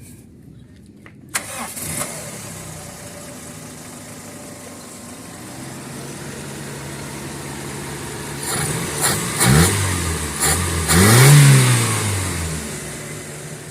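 Van's replacement carbureted engine starting about a second in, then idling. Near the middle it is revved up and let fall back twice before settling to idle again.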